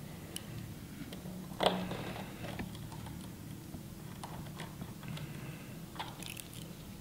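Small scattered clicks and taps of a precision screwdriver against the tiny metal home button cover plate and its screws on an iPhone 6 screen assembly, the loudest tap about a second and a half in and a quick cluster near the end, over a faint steady low hum.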